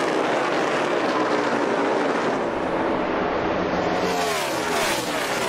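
NASCAR Cup stock cars' V8 engines running flat out as a pack of cars races by, a dense blend of several engines. About four seconds in, the pitch falls as cars pass close to the microphone.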